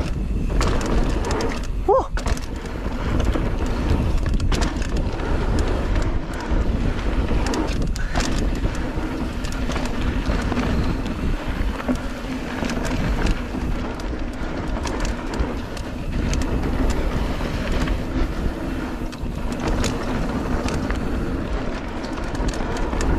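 Polygon Siskiu T7 mountain bike riding fast down a dirt trail: wind rushing over the camera microphone and knobby tyres rolling on dirt, with scattered clicks and rattles from the bike over bumps.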